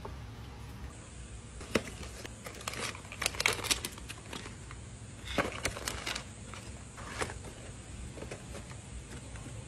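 Hands handling coffee packaging: crinkling of foil drip-coffee sachets and sharp clicks and taps as capsules and cardboard boxes are moved and set down. The clicks are loudest in a cluster a few seconds in and again a little later, over a low steady hum.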